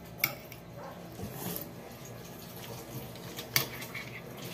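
Cutlery clinking against plates: two sharp single clicks, one just after the start and one near the end, over a quiet steady hum.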